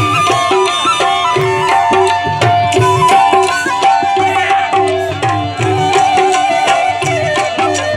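Live Saraiki folk music for dancing: hand drums in the manner of a tabla play a steady, quick rhythm under a sustained melody line.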